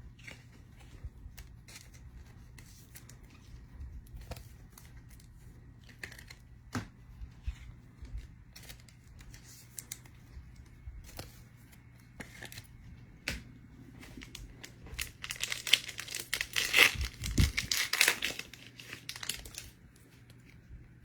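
Trading-card pack wrappers being torn open and crinkled, with light scattered clicks and taps of cards being handled. The crinkling is thickest for a few seconds near the end.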